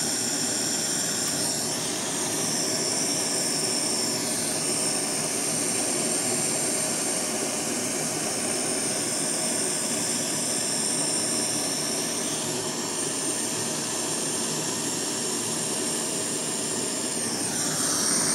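A handheld gas brazing torch burning steadily with an even hiss, heating bronze wire pieces to red heat before the silver solder goes on.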